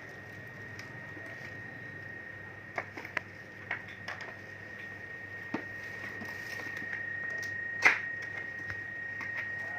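Scattered sharp clicks and taps of small objects being handled, the loudest about eight seconds in, over a faint steady high-pitched whine.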